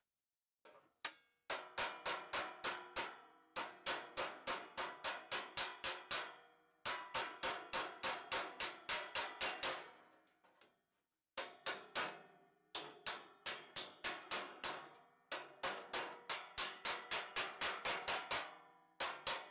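Hammer-and-dolly work on a sheet-metal charger case: a hammer rapping against a steel dolly held behind the panel. The blows come about five a second in runs of two to three seconds with short pauses between, each with a brief metallic ring.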